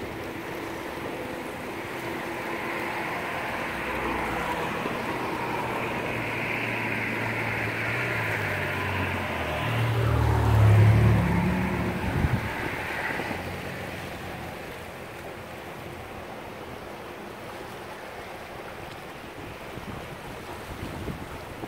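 Steady rush of the fast, swollen flood-stage river, mixed with traffic noise on the highway bridge above it. A vehicle passes close by about ten to twelve seconds in with a low engine hum, the loudest moment, and after that it settles to a quieter rush with wind on the microphone.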